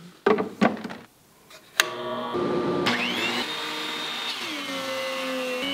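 A few knocks and clicks as a dust-collection hose quick-connect is fitted to a benchtop planer's dust port. Then a sharp click and motors start: a steady hum, joined about three seconds in by a rising whine that spins up to speed and settles into a steady run.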